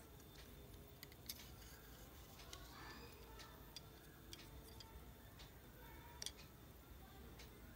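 Near silence broken by a few faint, sharp clicks as a cardboard retail box is handled and red-handled scissors are brought to its hanger tab; the sharpest clicks come about six seconds in.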